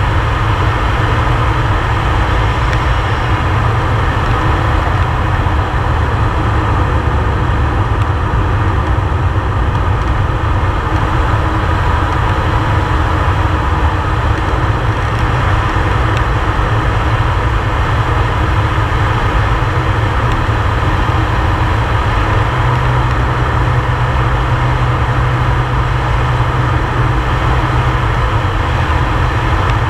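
Air Tractor 502XP's PT6A turboprop engine and propeller running steadily in flight, heard from inside the cockpit as a loud, unbroken drone with a deep rumble.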